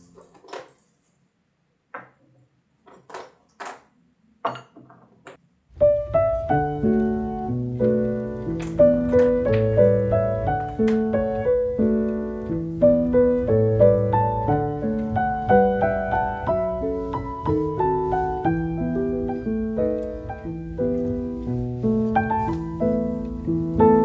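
A handful of light taps and knocks of small decorations being set down on a wooden tabletop, then background piano music coming in about six seconds in and carrying on with a slow, steady melody.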